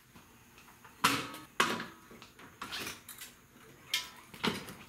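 Steel center stand of a Honda Helix scooter being pushed down with a foot as the scooter is rocked up onto it: a few sharp metallic knocks, two about a second in and two more near the end.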